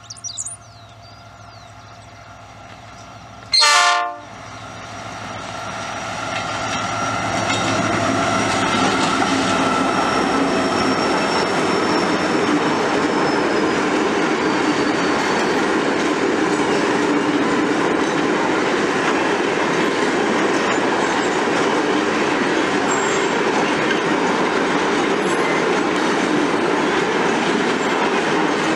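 A GM GT22CW diesel-electric locomotive sounds a short horn blast about four seconds in. The loaded freight train then rolls past, its rumble building over the next few seconds and then holding steady with clickety-clack from the wheels on the rail joints.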